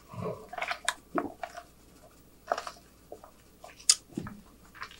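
Close-miked mouth sounds of eating and drinking: short, wet smacks, clicks and a swallow, spread out with quiet gaps between them.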